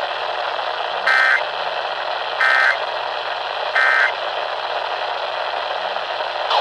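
Emergency Alert System end-of-message signal: three short bursts of SAME digital data tones, about 1.3 seconds apart, over steady radio static.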